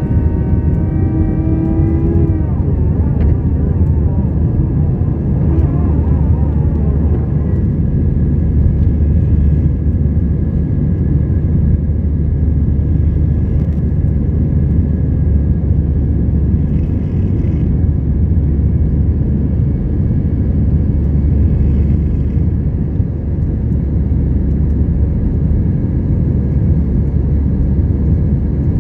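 Cabin noise of an Airbus A321-211: a steady, loud low rumble of the CFM56 engines and airflow. A pitched whine with several overtones shifts and fades about two seconds in.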